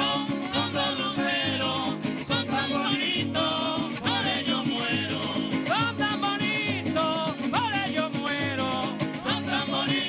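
Golpe tocuyano played by a Venezuelan folk string ensemble: strummed cuatros and guitars driving a lively rhythm, with maracas shaking and a hand drum, and men's voices singing over them.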